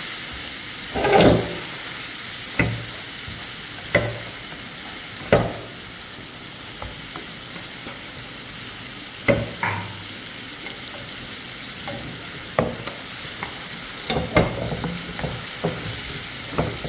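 Spice masala of salt, chilli and turmeric sizzling in a pan with a little water just added, as a utensil stirs it. The cooking utensil knocks and scrapes against the pan about a dozen times at uneven intervals over a steady sizzle.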